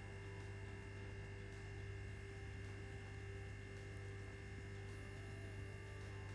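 A steady, faint electrical hum with a few constant higher tones over it, unchanging throughout, and no distinct handling sounds.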